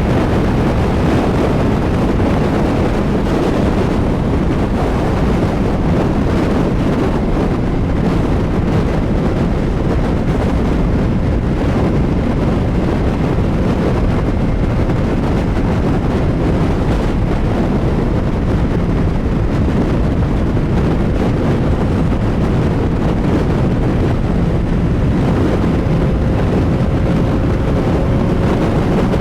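CFMoto 675SR-R inline-three sport bike running at highway speed, its engine note steady under heavy wind rush on the microphone; the engine pitch rises slowly near the end.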